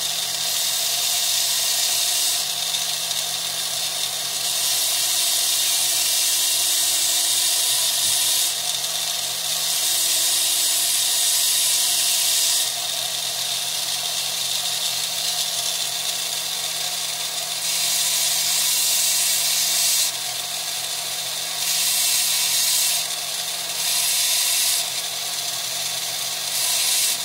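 Small high-speed rotary carving tool with a diamond bit grinding wet fire agate. It runs with a steady hum, and a hiss swells and drops away every few seconds as the bit is worked over the stone with light pressure.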